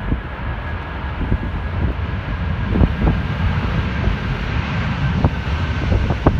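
Jet airliner engine noise at a distance, a steady low rush with a faint high whine, with gusty wind buffeting the microphone in irregular thumps.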